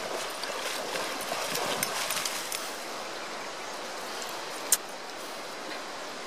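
Steady outdoor hiss with light splashing and pattering as golden retrievers wade out of the river shallows onto the sand in the first couple of seconds, and one sharp click about five seconds in.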